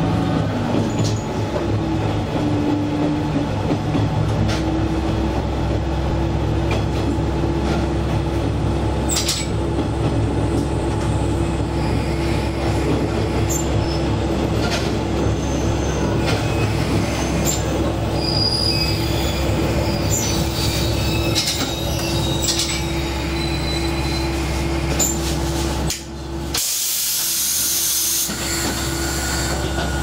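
Diesel railcar running on jointed track and pulling into a station: a steady engine hum with rail rumble, brief high wheel squeals now and then, and a short burst of air hiss about four seconds before the end.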